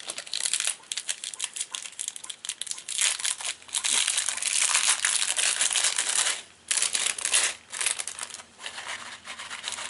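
Small plastic packet being handled and opened: a run of plastic crinkling and crackling with brief pauses.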